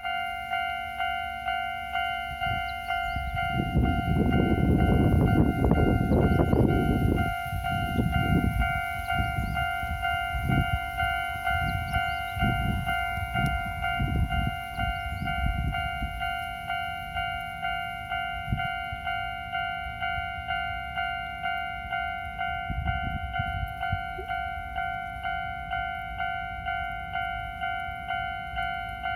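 Japanese level-crossing warning bell ringing steadily, about once a second, as a Kintetsu Yoshino Line train passes over the crossing. The train's loud rumble comes about four seconds in, followed by wheels clacking over rail joints that fade out about halfway through.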